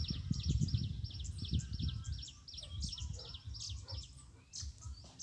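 A small bird chirping in a fast run of repeated high notes, about five a second, which breaks up into scattered single chirps about halfway through, over a low, uneven rumble.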